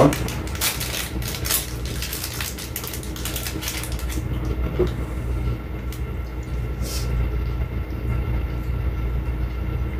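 A steady low rumbling hum, with crinkling and clicking handling noises over the first four seconds that then stop.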